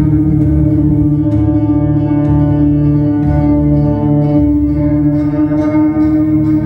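A post-rock band playing live and loud: sustained, ringing electric guitar tones held as a drone, with a low throbbing bass underneath.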